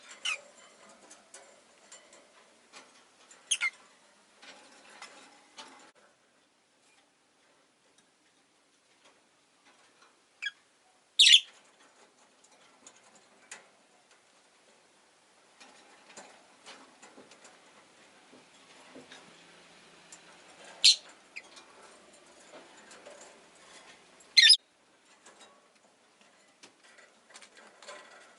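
Rosy-faced lovebird giving short, sharp, high chirps, about five in all, the loudest about eleven seconds in. Faint scratching and clicking fill the gaps, with a quiet spell after the first few seconds.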